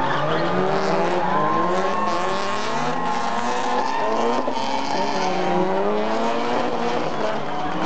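Several drift cars sliding with engines revving hard, their engine notes rising and falling over one another. A steady high tyre squeal runs from about a second in until just past the middle.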